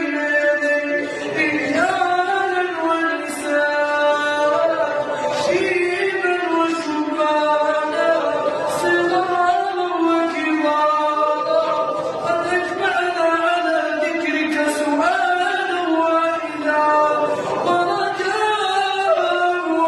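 A boy's voice chanting an Arabic du'a (supplication) in a slow, melodic style, with long held notes that rise and fall in ornamented turns.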